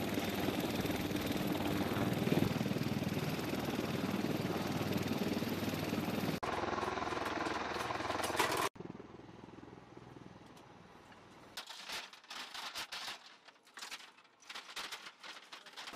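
Military helicopter running on the ground with its rotor turning, a dense, steady engine and rotor noise that cuts off abruptly about six seconds in. After a second loud stretch ending about nine seconds in, it is much quieter, with scattered short rattles and clicks near the end.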